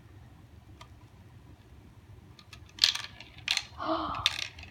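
Marbles clattering down a toy marble run: after a quiet start, a quick run of sharp clicks and rattles begins about three seconds in.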